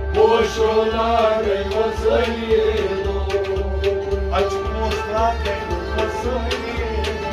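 Kashmiri devotional kalam: men singing in turn over a harmonium's held drone, with a steady hand-drum beat.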